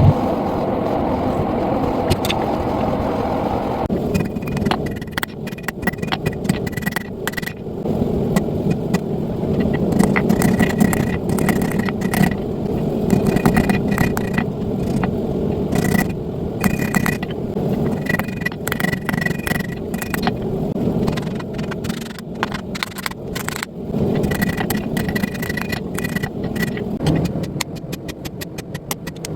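Hand hammer blows on hot steel at the anvil, many strikes each with a short metallic ring, over a steady roar. Near the end the blows come in a fast, even run.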